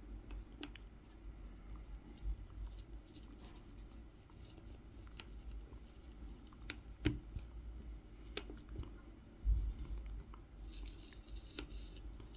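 Tip of a Mora 106 carving knife cutting fine kolrosing lines into a wooden spoon: quiet scratching with scattered small clicks as the blade bites into the wood, a dull knock a little over halfway, and a longer scraping cut near the end.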